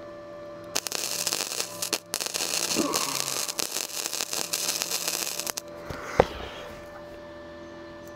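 Electric arc welding on the steel roof-rack bracket: a dense crackle lasting about five seconds, with a brief break near two seconds, as the bracket is welded fast. Then a single sharp knock, over a steady electrical hum.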